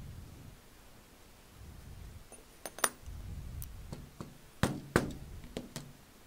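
Handling noise at a leatherworking bench: light knocks and clinks as metal leather tools are set down and the leather piece is lifted off the poly board. There are several sharp knocks in the second half, the loudest about three seconds and five seconds in.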